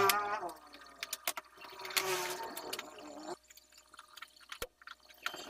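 Two drawn-out squeaks as a large bare LCD TV panel is handled and slid about, the first at the start and the second from about two seconds in, each wavering in pitch. Scattered light clicks and taps run through, with a single sharp tick near the end.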